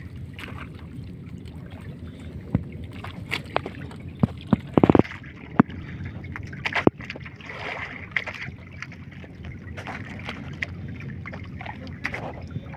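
Wet gillnet hauled hand over hand over the side of an outrigger fishing boat: water dripping and sloshing off the net, with scattered knocks and a cluster of sharp knocks about five seconds in, over a steady low drone.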